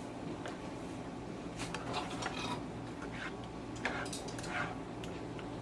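Utensil stirring and scraping scrambled eggs in a frying pan: irregular scrapes and clicks against the pan over a steady low hum.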